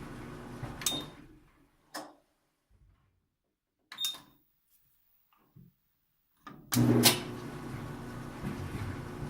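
GE dryer's drum motor running, then stopping about a second in after a click with a short high beep and winding down. After a few clicks and another beep, a loud relay click sets the motor running again with a steady hum. The faulty motor relay is what makes the dryer stop and start.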